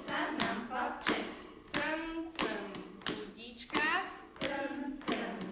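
A group of women singing a children's song together over a steady beat of sharp claps, about one and a half claps a second.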